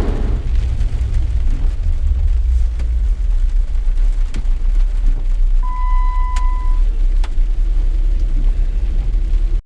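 Loud, steady low rumble with no gunshots, broken by a single electronic beep lasting about a second near the middle and a few faint clicks.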